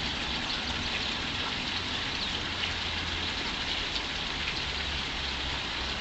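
Steady outdoor background hiss, like rain or running water, with a low rumble underneath and no distinct events.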